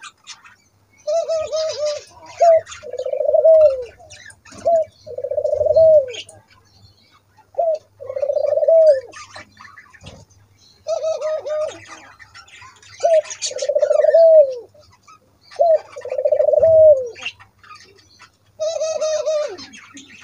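White doves cooing: each call is a short note followed by a long rolling coo that drops in pitch at its end, repeated every two to three seconds. Small birds chirp faintly in the background.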